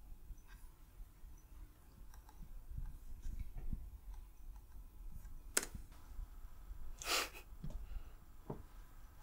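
Faint low rumble with a few scattered sharp clicks, the sharpest about five and a half seconds in and a longer cluster about seven seconds in.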